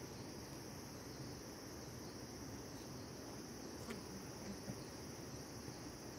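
Insects chirring in a steady, high-pitched chorus, with one faint click about four seconds in.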